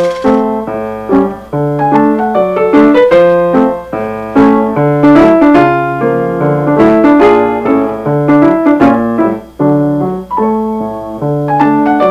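Piano music: a lively tune of quick, separate notes.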